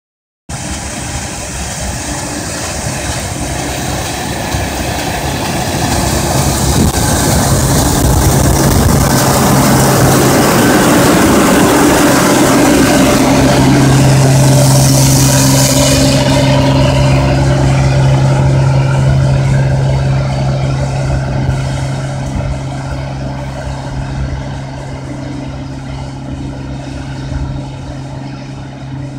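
Case IH cotton picker running as it passes close by, a steady engine hum under a rushing hiss. It grows louder to a peak about halfway, then the hiss drops away and the machine fades as it moves off.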